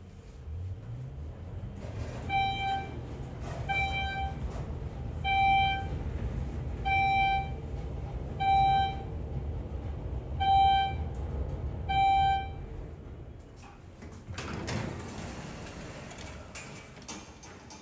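Elevator car travelling with a steady low hum, beeping once at each floor it passes: seven short beeps, about one every one and a half seconds. Near the end the beeps stop and there is a short rushing noise as the car comes to a stop.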